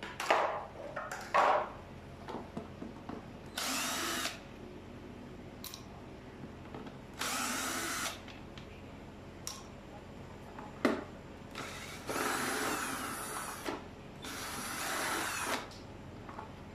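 Cordless drill-driver backing screws out of a pressure washer's plastic housing in four short runs of a second or two each. Two sharp knocks sound in the first second and a half, and a single click comes about halfway through.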